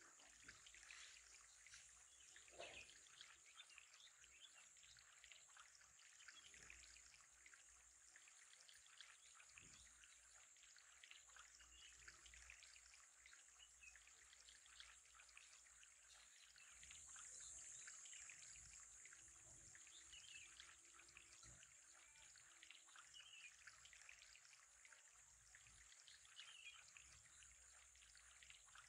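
Faint, steady trickling of water with a high hiss and fine ticking, occasionally dotted with small faint chirps.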